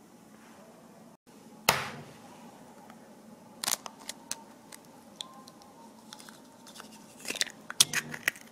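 Kitchen utensils and containers being handled: one sharp knock about two seconds in, then scattered light clicks, and a quick run of taps and clacks near the end.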